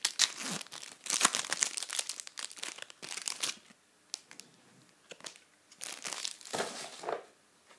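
Match Attax trading-card foil packet crinkling and tearing as it is opened: about three and a half seconds of dense crackling, a lull with a few faint ticks, then another short burst of crinkling near the end.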